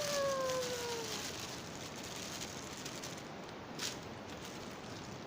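Thin plastic bags crinkling and rustling as a pile of bagged squishy toys is pulled out of a packet, with a slightly louder crackle about four seconds in. In the first second a pitched tone slides slowly downward and fades.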